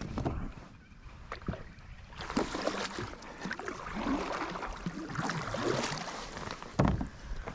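Water splashing and sloshing at the side of a kayak, with a loud dull thump near the end.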